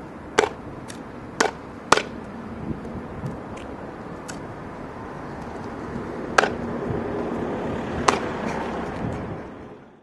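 Sharp knocks of feet landing on a stiff 3D-printed stereolithography resin part (Tusk SolidGrey3000), five loud ones spread irregularly, over a low background noise that grows louder in the second half and then fades out.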